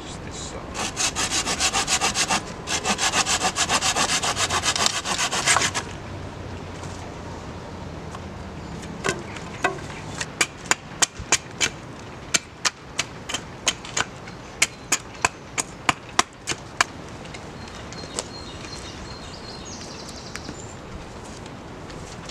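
A hand saw cutting through a dead-wood stave in quick back-and-forth strokes for about five seconds. A few seconds later an axe chops at the end of the stave against a log to taper it to a point, about twenty sharp strikes at roughly two a second.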